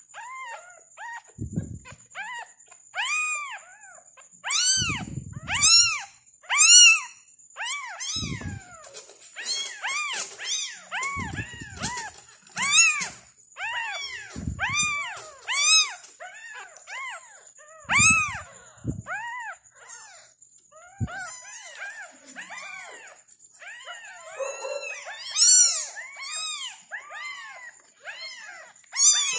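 Newborn kittens mewing during bottle-feeding: high-pitched cries that rise and fall in pitch, coming one after another with hardly a pause. Several dull bumps are heard among the cries.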